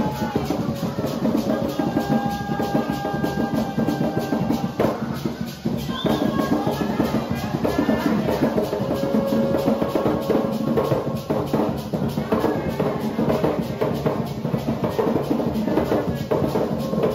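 Garifuna hand drums played live in a steady rhythm, with a group of voices singing held notes over the drumming.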